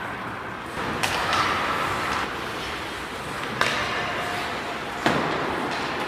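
Ice hockey play in an echoing rink: three sharp cracks of sticks and puck, about a second in, midway and near the end, the last ringing out in the arena, over a steady rink hum.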